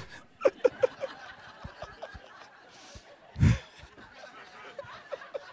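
Audience chuckling and laughing in scattered short bursts, with one louder burst about three and a half seconds in.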